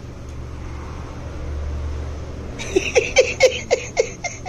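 A low steady rumble, then, a little past halfway, a person laughing in a quick run of short 'ha' bursts, about four a second, each falling in pitch.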